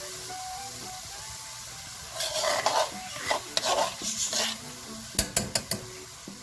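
Onions and garlic sizzling in a large pot, with a steady frying hiss. From about two seconds in, a spoon stirs and scrapes through the pan. Around five seconds in, the utensil knocks sharply against the pot several times in quick succession.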